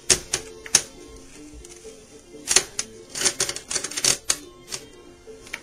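Irregular metal clicks and taps from the banjo's bracket hooks and tension nuts being handled and tightened around the rim while a new head is fitted, thickest between about two and a half and four seconds in. Faint music plays underneath.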